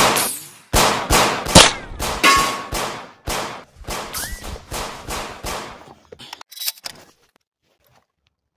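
A rapid run of gunshots, about two or three a second, each a sharp crack with a ringing tail, growing fainter. They stop about six seconds in, followed by a few faint metallic clicks and then silence.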